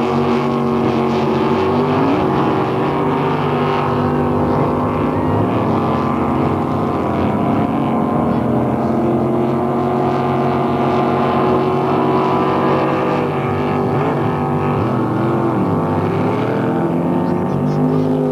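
Motorboat engines running together at a boat race, several pitches at once, now and then rising and falling as the throttles change.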